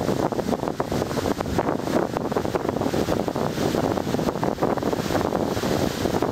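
Wind buffeting the microphone: a steady, rough rushing noise full of short crackles.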